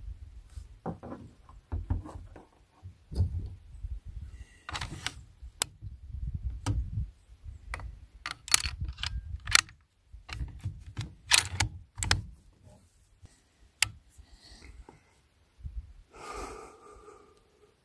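Irregular clicks, knocks and rattles of gear being handled on a shooting bench close to the microphone. A short scraping sound comes near the end.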